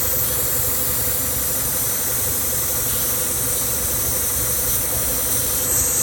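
Car engine idling with a steady high-pitched hiss from a vacuum leak at a vacuum hose, the leak that runs the engine lean and sets a P0171 code.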